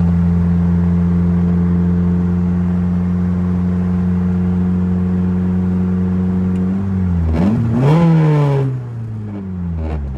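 Turbocharged Mazda Miata engine running at steady, raised revs for several seconds, then blipped: the pitch rises sharply about seven seconds in and falls back as the revs drop.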